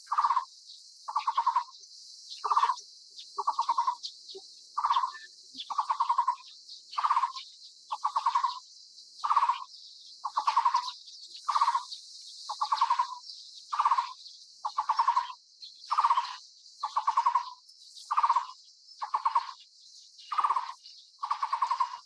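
Taiwan barbet calling: a low, short trilled note repeated steadily about every three-quarters of a second, over a steady high hiss.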